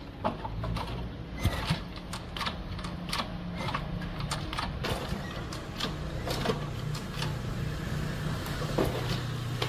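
Workshop repair sounds: irregular sharp clicks and knocks of metal tools on motorcycle engine parts, over a low steady hum.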